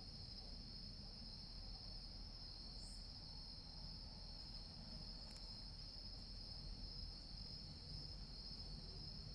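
Crickets singing in a steady, unbroken high-pitched chorus, with a faint low rumble underneath.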